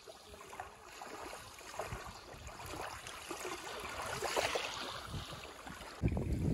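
Small wavelets lapping onto a beach of coral (maerl) gravel, the water fizzing and crackling as it runs over the fragments, building to a fuller wash about four seconds in. Near the end a low rumble of wind on the microphone sets in.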